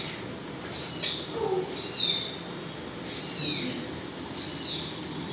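A small animal's short, high call repeated four times, about every second and a quarter, each call rising and then falling, over a faint steady background hiss.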